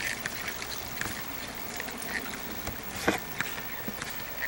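Steady outdoor background noise with a low hum, a few faint short chirps and one sharp knock about three seconds in.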